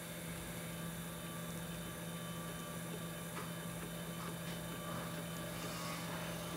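Electric pottery wheel's motor running with a steady low hum, with a few faint short scrapes over it.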